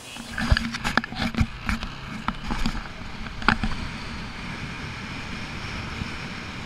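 Moped riding along a road: steady wind and road noise on the microphone with the scooter's engine running underneath, and a few sharp knocks in the first three and a half seconds.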